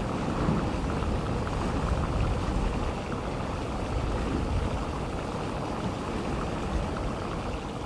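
Geothermal thermal vent giving off a steady, low rushing noise with a fine grainy crackle.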